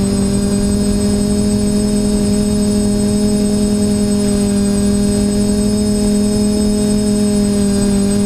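TBS Discovery quadcopter's electric motors and propellers whirring in a steady, even-pitched drone with a thin high whine above it.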